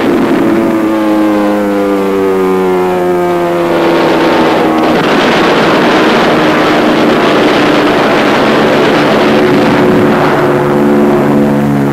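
Propeller aircraft engines droning loudly, the engine note falling slowly in pitch over the first few seconds, then a dense rushing roar, with a steadier engine drone returning near the end.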